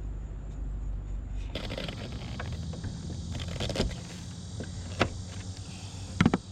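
Wiring being worked through an air conditioner's strain relief: scattered clicks and rattles of plastic and wire, with a sharp click about a second before the middle and a quick double click near the end, over a steady low rumble.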